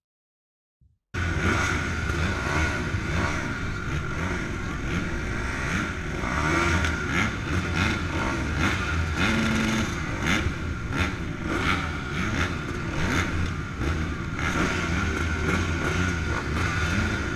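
Silent for about the first second, then a line of motocross bikes running and revving together, the rider's own Honda CR250R two-stroke single among them, blipping in rising and falling surges while waiting for the start gate to drop.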